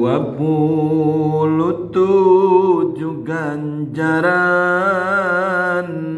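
A man chanting a Sundanese pupujian (devotional verse) unaccompanied, in long held notes with a wavering vibrato and melodic turns, phrase after phrase with short breaths about two and four seconds in.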